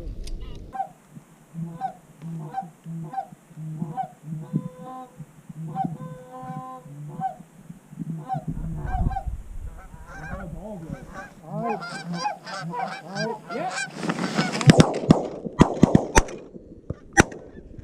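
A flock of geese honking over and over. In the last few seconds a volley of shotgun shots rings out, several in quick succession, with honking continuing between them.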